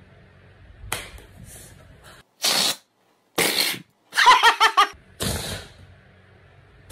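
A man making mouth and voice noises: a click, short breathy puffs, and a quick run of about eight pitched, laugh-like pulses in the middle.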